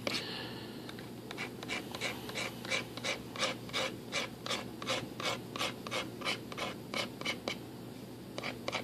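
Hobby knife blade scoring the fiberglass composite skin of a glider wing: short, repeated scraping strokes at about three a second, with a brief pause near the end.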